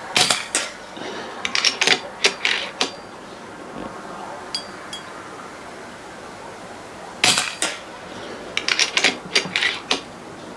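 Two moderated shots from an FX Crown PCP air rifle, one right at the start and one about seven seconds in. Each is a sharp crack with a second report about a third of a second later. About a second after each shot comes a run of metallic clicks as the rifle is cocked and the next pellet is loaded.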